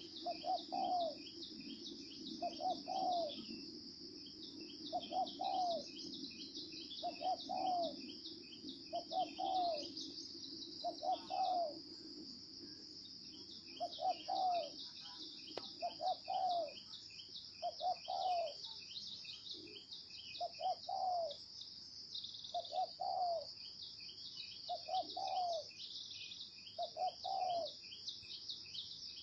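Spotted dove cooing: short, deep coos repeated about once a second, often in pairs. Insects trill in fast pulses behind it.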